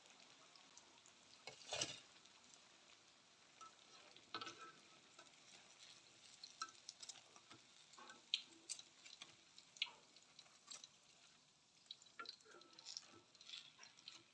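Faint sizzle of battered banana fritters deep-frying in oil, with scattered small crackles and pops, a few sharper than the rest.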